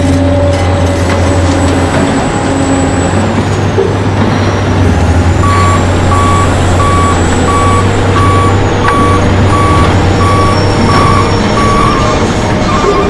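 Remote-control toy dump truck's reversing alarm beeping steadily, about three beeps every two seconds, starting about halfway through, over a continuous low hum.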